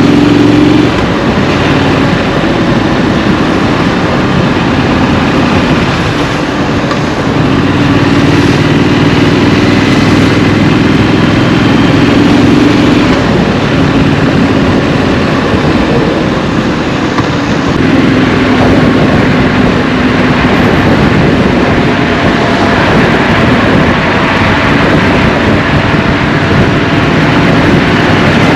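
Triumph Street Scrambler's parallel-twin engine under way. Its note rises and falls several times as the bike accelerates and eases off in traffic, over a steady rush of wind and road noise.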